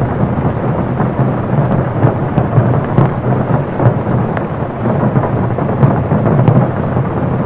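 Torrential rain drumming steadily on a car's roof, a dense low pattering with scattered sharper drop impacts.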